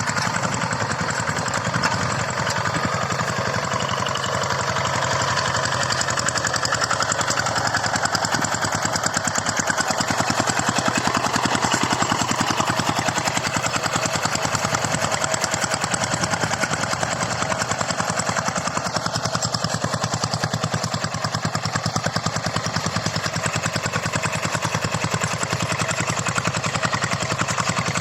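Two-wheel hand tractor's engine running steadily under load while plowing, with a fast, even firing beat.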